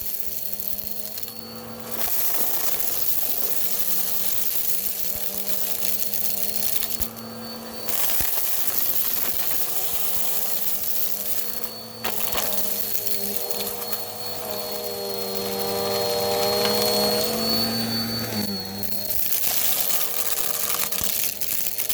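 Bissell vacuum cleaner running up close: a steady rushing hiss over a motor hum and whine. The hiss drops out briefly a few times, and the whine bends up and back down in pitch a little past the middle.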